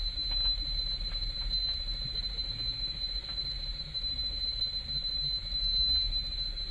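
Eerie soundtrack of the cursed videotape playing on a television in a horror film: a steady high-pitched whine over a low rumble, with faint crackling ticks.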